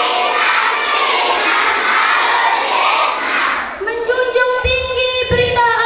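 A crowd of children's voices shouting and chanting together. About four seconds in, a single child's voice takes over and holds one long, steady high note.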